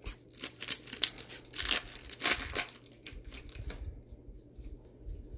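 A foil pack of Bowman baseball cards being torn open and the cards handled with gloved hands. There is a quick flurry of crackling and tearing over the first four seconds, then quieter rustling.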